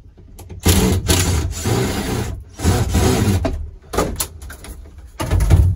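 Rough rubbing and scraping inside a truck's sleeper cab, in three bursts: a long one of about two seconds, a shorter one, and a brief one near the end. This is material being handled and pulled at the cab walls while the interior is gutted.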